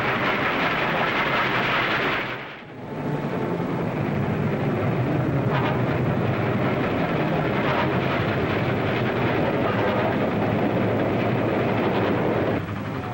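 Steam train running on an old 1940s film soundtrack: a loud, steady rush and rumble. It dips briefly about two and a half seconds in and drops away near the end.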